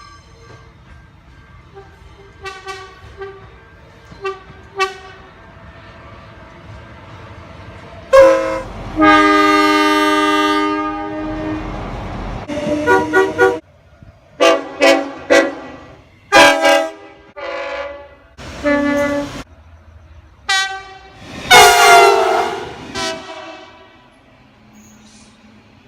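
Train air horns sounding: a few faint short toots, then a loud long blast, a run of short blasts, and another loud long blast near the end.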